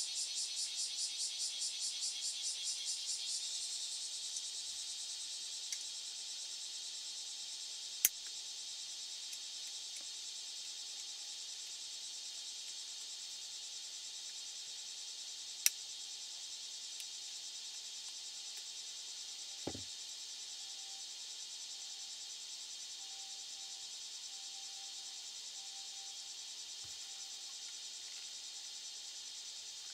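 Steady high-pitched trilling of insects, pulsing about four times a second for the first few seconds and then running evenly. There are two sharp clicks, about 8 and 16 seconds in, and a soft thump near 20 seconds.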